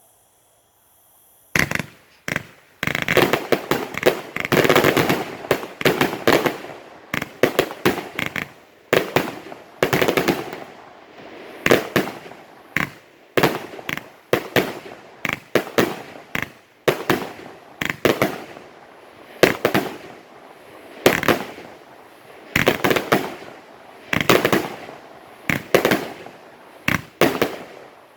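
A 130-shot consumer fireworks cake firing: a long run of sharp bangs, often in quick clusters, each with a short noisy tail. The shots begin about a second and a half in.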